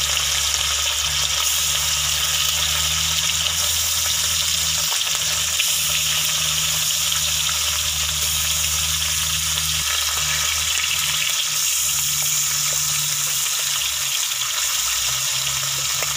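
Whole pomfret fish frying in hot oil in a metal kadai: a steady sizzle, with a low hum underneath.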